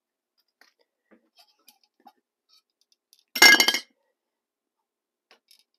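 A metal tin-can cook pot clanking as it is picked up: one short, loud metallic clatter with a ringing tone about halfway through, among faint handling clicks.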